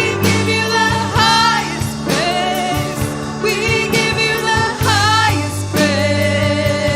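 Worship music: a voice singing sliding, held lines over sustained instrumental chords.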